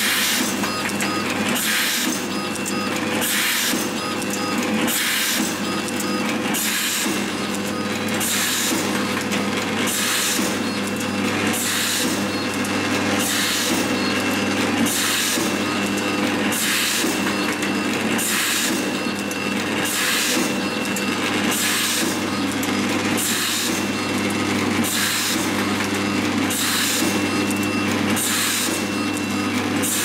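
Automatic wire cut-strip-and-crimp machine running its cycle, with a short hissing burst about once a second over a steady motor hum.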